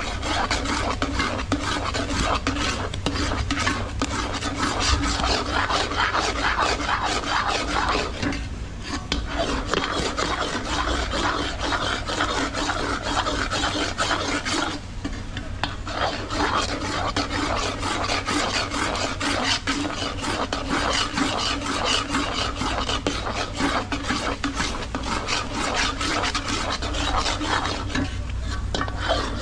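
A spoon scraping around a pot in steady, continuous stirring strokes, working a thickening milk-and-brown-sugar pera mixture over the fire, with two brief pauses.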